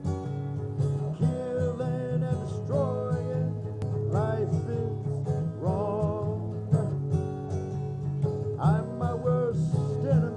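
Country-style music with strummed acoustic guitar over a steady low bass, and gliding lead notes coming in and out.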